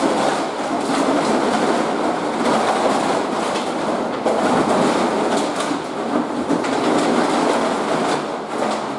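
Empty plastic milk bottles clattering and crunching continuously as a dog wades and roots through a deep pile of them.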